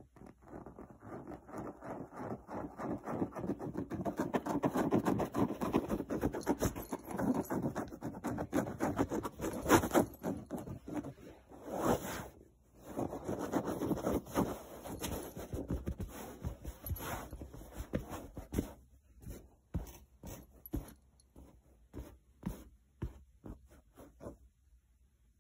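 Fingers scratching and rubbing on woven couch upholstery: a dense run of scratchy rustling that thins to scattered single scratches over the last several seconds.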